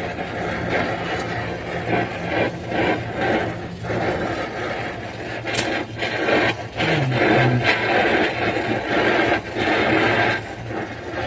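Gas brazing torch flame hissing as it heats a refrigerant pipe joint on an air-conditioner compressor, with some scraping and a few sharp metal knocks.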